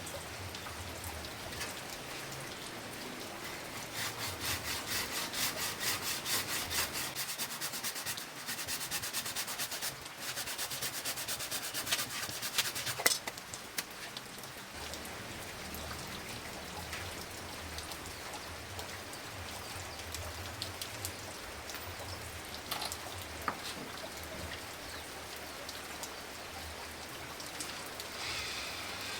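Regular hand rasping strokes on the steel of an old saw blade being shaped into a grass-cutting blade, about three strokes a second, stopping about halfway through. A fainter steady hiss with a few light clicks follows.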